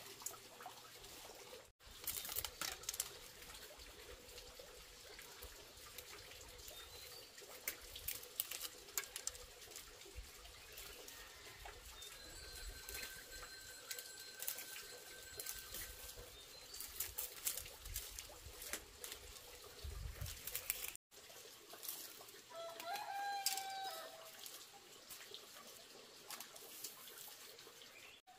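Scattered clicks and rustling, with a rooster crowing once about three-quarters of the way through.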